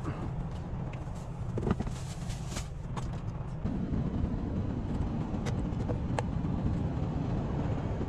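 Steady low diesel truck rumble, with scattered clicks and knocks of things being handled and set down in a semi-truck cab.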